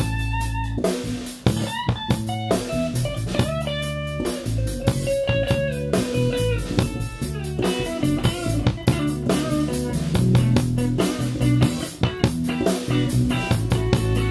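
Live instrumental band: an electric guitar plays a melodic lead with bent and held notes over electric bass and a drum kit.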